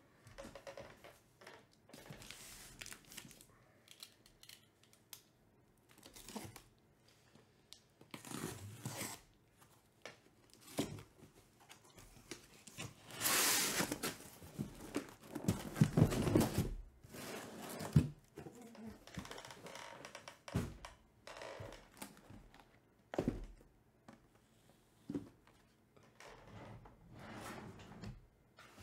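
Cardboard shipping case being opened and unpacked: tape and cardboard tearing and scraping, with one long loud scrape midway, and card boxes slid out and set down with a few sharp knocks.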